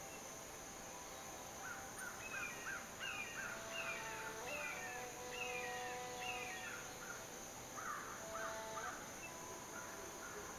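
Birds calling in the trees: a run of about five falling calls, repeated roughly every 0.7 seconds, with quicker short notes mixed in from about two seconds in until past the middle.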